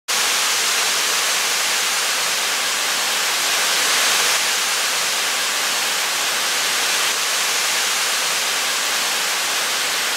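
Waterfall: the steady rush of falling water, even and unbroken, cutting in and out abruptly.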